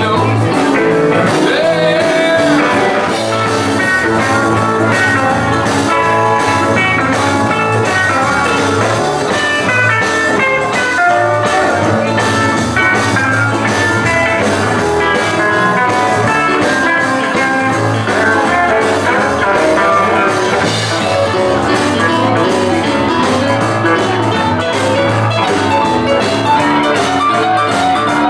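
Live rockabilly band playing: electric guitar and drums with a singing voice.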